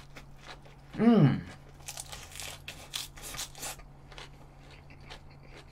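Mouth chewing a lettuce wrap of grilled pork: irregular crisp crackles of fresh lettuce leaves being bitten and chewed. A short voice sound from the eater comes about a second in.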